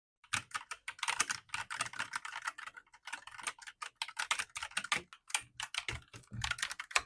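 Fast typing on an Akko Dragon Ball Z 3087RF mechanical keyboard: a quick, dense run of key clicks that starts just after the beginning, with a couple of brief pauses.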